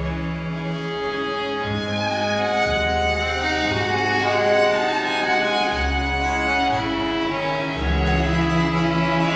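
Violin playing a melody over a double bass line and classical guitar accompaniment, with no voice: an instrumental break in the song.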